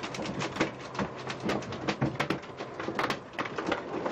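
Irregular clicks and knocks, several a second, over the low steady hum of a boat engine.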